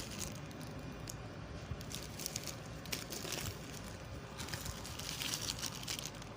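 Ice cream packaging crinkling and crackling as it is unwrapped and handled, in several short clusters of fine crackles.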